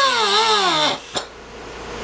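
Handheld rotary tool with a cutoff wheel whining against the plastic fuel tank at the petcock fitting, its pitch sagging and recovering under load, then winding down about a second in. A single click follows, then only a faint hiss.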